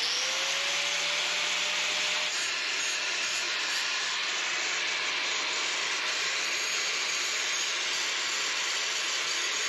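An electric power tool motor starts, its whine rising as it spins up and then holding steady over a continuous hissing rush.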